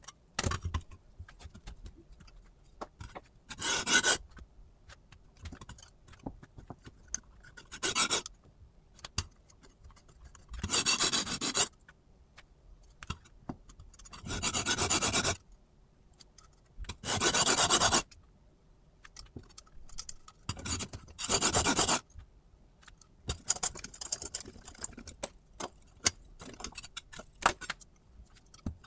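Kitchen knife edge, held at a fixed angle by a Hapstone T1 angle guide, rasping across a sharpening plate in short runs of strokes, about seven runs each lasting around a second. Small clicks and knocks between the runs come from the knife and guide being handled.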